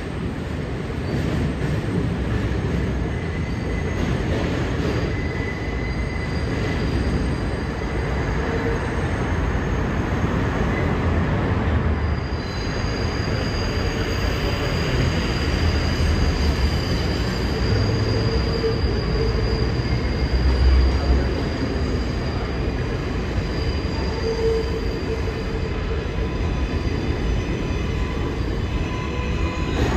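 R188 subway trains running over elevated steel track: a steady rumble of steel wheels on rail. About twelve seconds in, high thin wheel squeal from the curved track sets in and holds.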